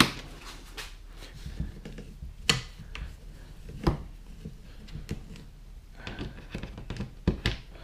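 Hands handling plastic kayak fittings and fish finder cable: scattered light clicks, knocks and rubbing against the hull. The sharpest knocks come about two and a half and four seconds in, and two more near the end.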